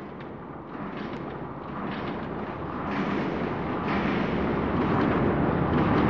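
A deep, dense rumble that swells steadily louder.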